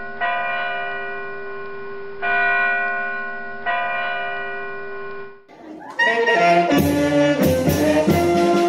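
Music transition: a sustained, ringing bell-like chord is struck three times, fading slowly after each strike. About six seconds in, rhythmic background music with a steady beat and a melody takes over.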